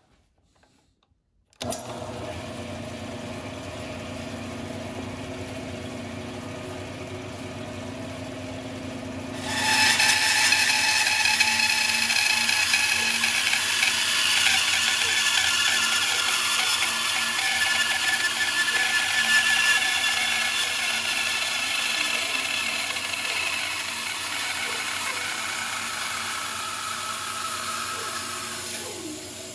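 A switch clicks about two seconds in and a bandsaw starts running steadily. From about ten seconds in, the blade cuts lengthwise through the carved wooden decoy body, splitting it into halves, with a much louder steady cutting noise that eases off near the end as the cut finishes.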